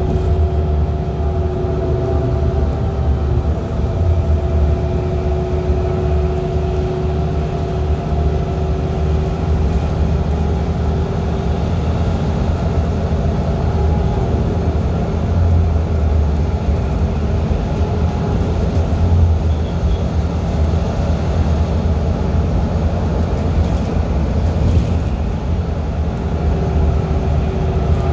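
City bus on the move, heard from the cabin: a steady low engine and road rumble with a steady whine from the drivetrain.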